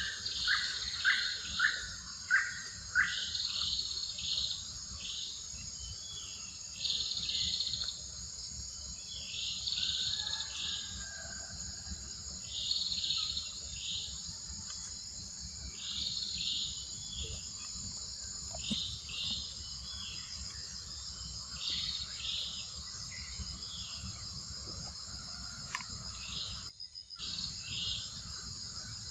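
Forest ambience: a steady, high-pitched drone of insects, with short chirping calls repeating every second or two over it. A quick run of five louder chirps sounds in the first three seconds, and the sound cuts out for a moment near the end.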